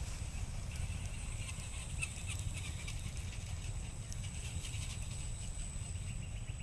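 Steady low wind rumble on the microphone, with faint irregular clicking of RC scale crawler tires rolling over the wooden slats of a rope suspension bridge, and a thin steady high whine.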